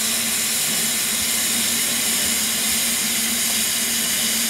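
Stationary BR Standard Class 4MT 4-6-0 steam locomotive No. 75069 giving off a steady, even hiss of escaping steam, with a low steady hum beneath it.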